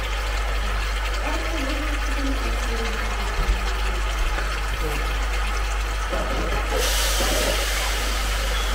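Pork pieces in a pot of freshly added water heating on an induction hob, a steady bubbling hiss; for about three seconds near the end the hiss grows brighter.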